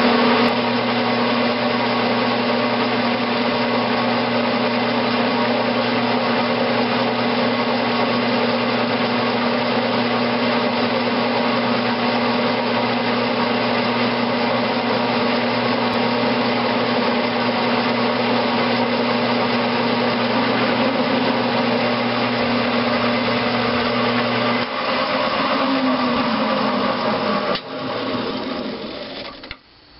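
Grizzly G9972Z 11x26 bench metal lathe running steadily while turning a steel valve stem down for a press fit. About 25 seconds in it winds down, its pitch falling, and it stops just before the end.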